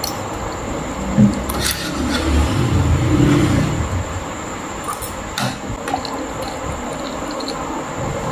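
Eating at a table: a spoon and fork clink on a plate a few times, with chewing, over steady room hiss.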